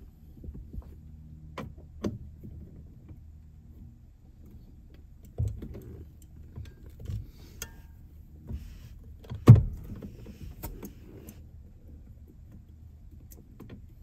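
Scattered clicks and knocks of a hand tool working an 8 mm airbag retaining bolt behind a car's steering wheel, with one sharp knock about nine and a half seconds in.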